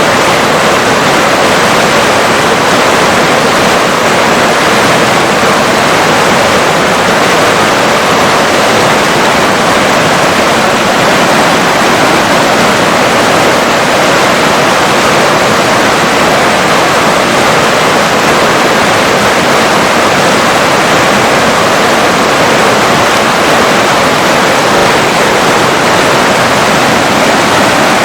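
River water rushing and flowing in a steady, loud, unbroken rush.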